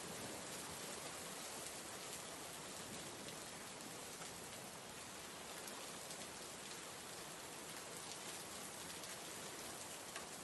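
Faint, steady hiss of background noise with a light, even patter, unchanging throughout.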